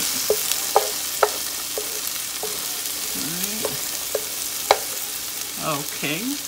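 Grape tomatoes, onions and garlic sizzling steadily in a pan of steak fat on low heat, with a utensil clicking against the pan about eight times as the vegetables are pushed aside to clear a space in the middle.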